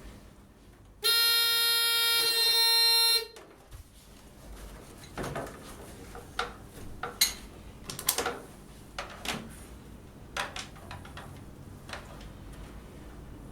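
An electronic buzzer on a fire alarm control panel gives one steady tone for about two seconds, starting about a second in and cutting off suddenly. Light clicks and knocks follow.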